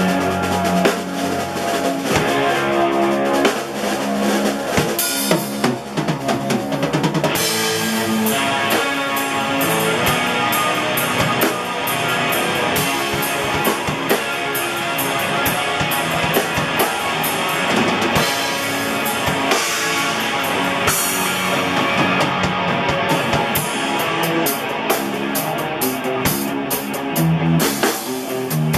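Electric guitar and a Pearl drum kit playing together live, the bass drum, snare and cymbals going under the guitar without a break.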